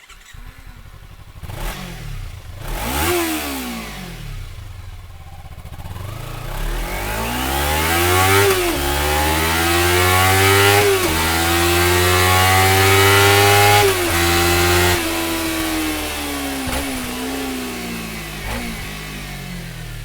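Kawasaki 296 cc parallel-twin sport bike: two short revs, then it accelerates hard, the pitch climbing and dropping sharply at each of three upshifts. It then eases off, the note falling, with two small blips near the end.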